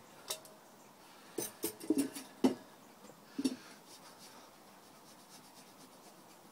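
Metal billy tin knocked and set down on a wooden bench, about six sharp knocks in the first three and a half seconds, one with a brief metallic ring. After that comes faint rubbing of a paper towel polishing its sooty base.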